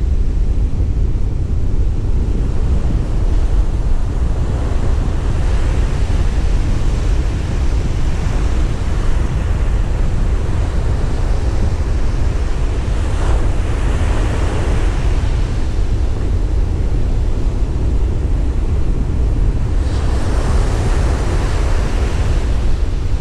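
Ocean surf breaking and washing up a beach, with wind buffeting the microphone in a steady low rumble. The hiss of the wash swells about halfway through and again near the end.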